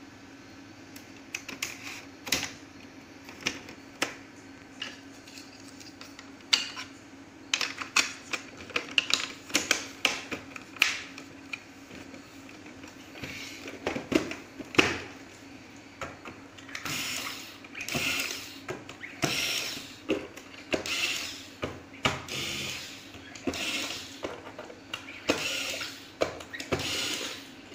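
Clicks and knocks as the plastic case of an LED projector is pressed together and turned over, then a corded electric screwdriver running in a series of short bursts, about one every second and a half, driving in the bottom cover screws.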